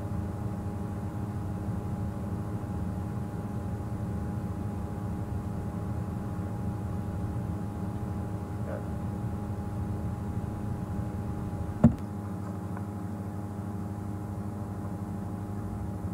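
A steady low hum with a few faint steady tones over it, broken by a single sharp click about twelve seconds in, after which the deepest part of the hum drops away.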